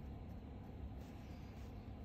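Faint scraping of a hand-turned cutter, held in a pin vise, as it shaves down a worn watch bridge post, most noticeable about a second in, over a steady low rumble of background noise.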